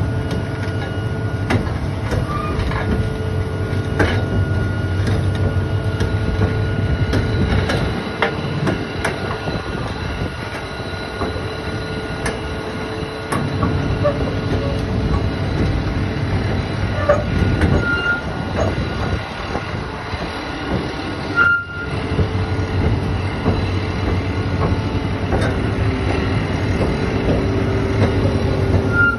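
Doosan DX480LC crawler excavator running, its diesel engine a steady low hum, with scattered metallic clicks and a few short squeaks.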